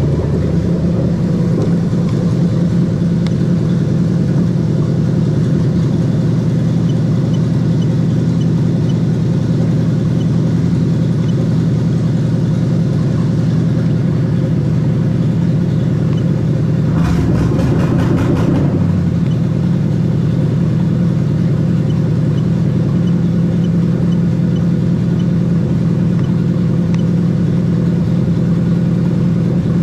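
Toyota 3UZ-FE 4.3-litre V8 idling steadily, with a short run of clicks and a brief change in its note about 17 seconds in.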